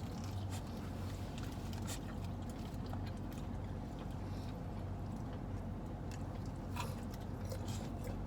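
A pet chewing and tearing at a fried chicken tender, with small crunches and clicks, over a steady low hum.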